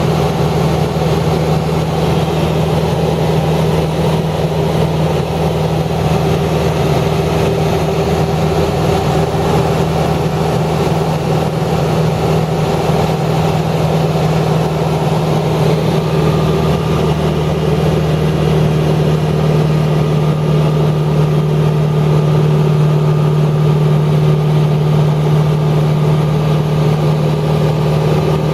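Steady engine-like hum holding one pitch throughout, with a strong low drone; a faint higher tone joins about halfway through.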